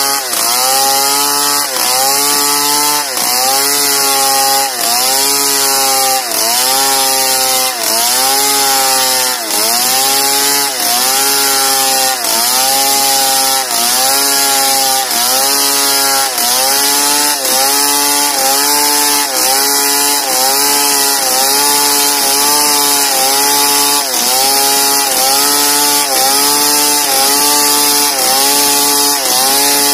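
Petrol two-stroke chainsaw ripping lengthwise through a large log, running under full throttle; its engine note sags and recovers about once every second and a half as the bar loads in the cut.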